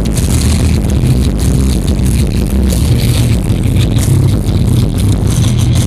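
Loud, bass-heavy music playing through a car audio system of two Digital Designs 9515 subwoofers on M3B amplifiers, heard from inside the car's cabin. The deep bass notes dominate and shift in pulses under the rest of the music.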